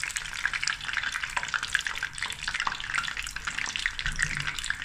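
Samoosas deep-frying in hot oil in a stainless steel pot: a steady crackling sizzle made of many small pops.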